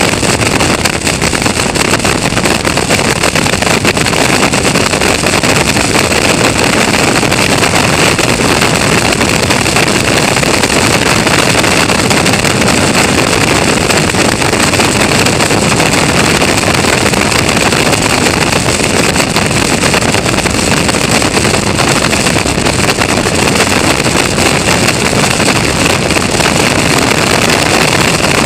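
Caterham Roadsport race car at racing speed, heard from an onboard camera: the engine running hard under heavy wind rush on the microphone. The sound is loud and steady.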